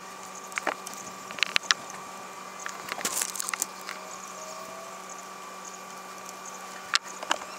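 Scattered clicks and light knocks of hand tools being worked at a boat engine while its spark plugs are changed, over a faint steady hum.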